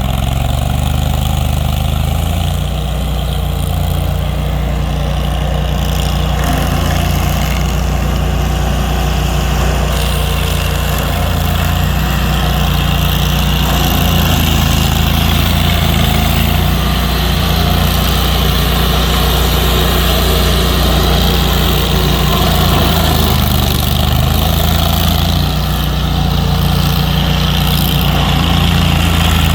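A large engine running steadily at a low idle, with small shifts in pitch.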